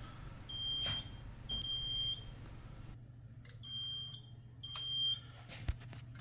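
Electronic beeper of fire alarm panel equipment sounding four high-pitched beeps in two pairs, each beep just under a second long, over a low steady hum.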